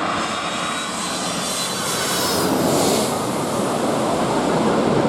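Airliner passing close at the airport with its engines running: a steady loud rush with a faint whine, brightening about two to three seconds in as it goes by.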